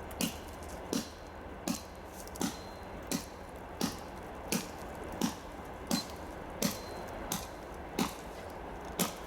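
An axe chopping into a thick log with steady, even strokes, about three every two seconds, some thirteen strokes in all.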